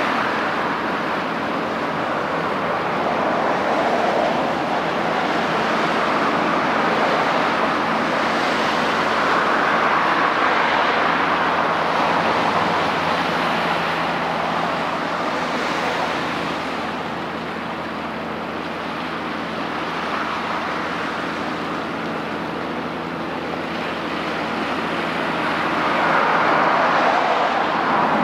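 Steady outdoor rushing noise that slowly swells and fades every several seconds, over a faint low steady hum.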